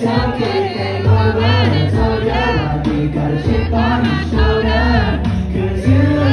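Male singer singing live into a handheld microphone through the venue's PA, over music with a bass line that steps between notes.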